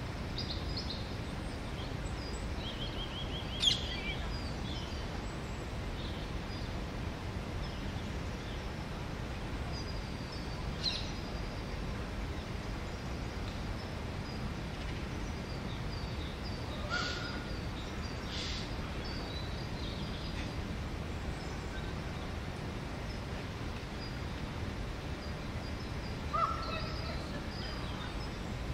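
Park ambience: scattered short bird chirps and calls, a few of them sharper and louder, over a steady low background rumble.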